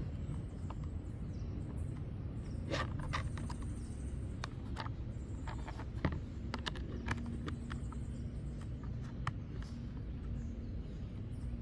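Scattered small clicks and taps of a screw and nut being handled and fitted through a hard plastic cover, over a steady low hum.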